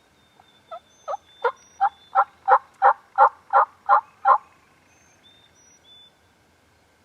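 A turkey yelp series: about eleven sharp, evenly spaced yelps a third of a second apart, growing louder, with faint high songbird whistles before and after.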